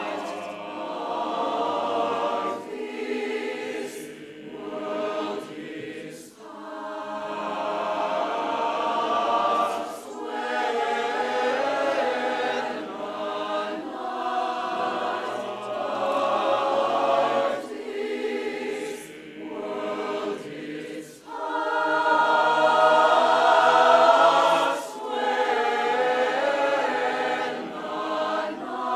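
A large mixed choir of men's and women's voices singing a choral piece in long sustained phrases with short breaks between them, swelling loudest about three-quarters of the way through.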